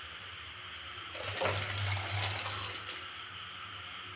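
Ghugni (dried-pea curry) being tipped out of a kadai into a steel bowl: a scraping, sliding rush of thick curry with metal clinks of pan against bowl. It starts about a second in and eases off after a couple of seconds.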